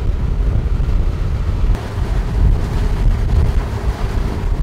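Wind buffeting the microphone aboard a sailing catamaran motoring into a headwind, a low uneven rumble, with a faint steady hum joining in about two seconds in.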